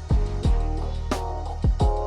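Background music with a steady beat: deep kick-drum thumps and sharp snare-like hits over sustained chords.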